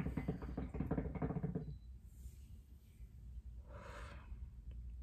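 Hookah water bubbling as smoke is drawn through the hose: a rapid gurgle that stops about a second and a half in. A short breath follows about four seconds in.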